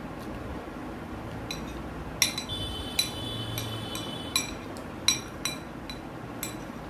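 Metal spoon clinking and scraping against a glass plate: about six sharp chinks, the first of them leaving the glass plate ringing for about two seconds.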